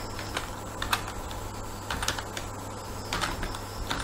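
Computer keyboard being typed on: single keystrokes at an irregular, unhurried pace, with short pauses between them.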